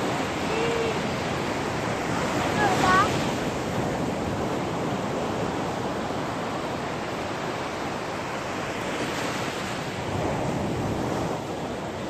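Sea surf breaking and washing up the shore, a steady rush of waves. Brief high-pitched children's voices come through a couple of times in the first three seconds.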